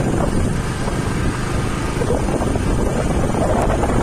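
Wind buffeting the microphone on a moving motorcycle, with the steady rumble of the ride underneath.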